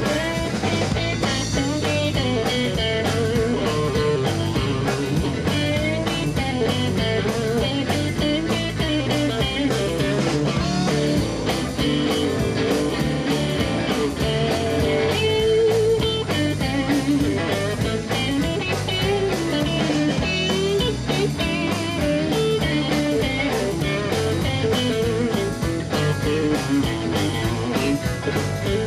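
Live blues band in an instrumental break: an electric guitar plays a lead line over bass and a drum kit keeping a steady beat.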